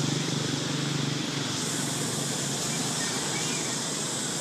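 Steady outdoor background hiss with a low engine hum that fades away about a second and a half in.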